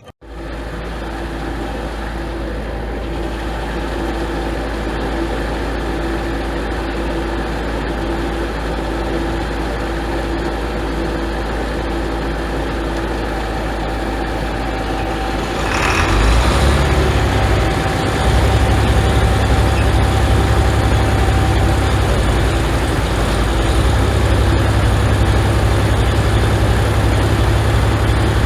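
John Deere 4020's six-cylinder engine being cranked in the cold with jumper cables boosting the batteries. About 16 seconds in it catches and runs with a heavier, deeper rumble, still cold.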